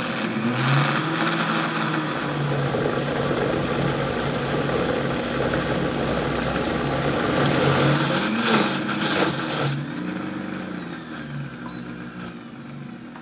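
Countertop blender running at high speed, grinding frozen pineapple chunks with pineapple juice and vanilla ice cream. The motor's pitch wavers as the load shifts, and the sound eases off over the last few seconds before stopping.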